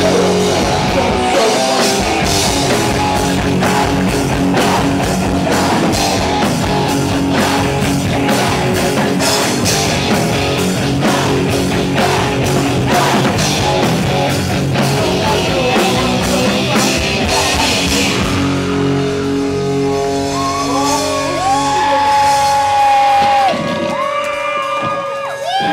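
Live punk-metal band playing loud: distorted electric guitar, bass and drums with yelled singing. About eighteen seconds in the drums drop out and long held notes that bend in pitch ring over the band.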